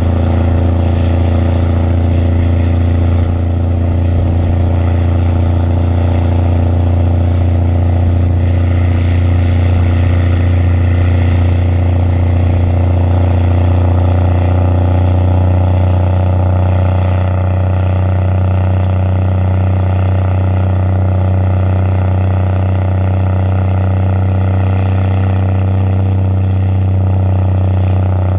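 Straight-piped 600 hp Mack truck's diesel engine running hard at a steady pitch while pulling a lowbed loaded with a Cat 980 wheel loader.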